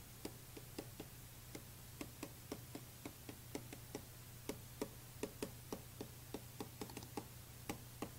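Stylus tapping and clicking on a tablet screen while handwriting, faint irregular taps a few times a second, over a faint steady hum.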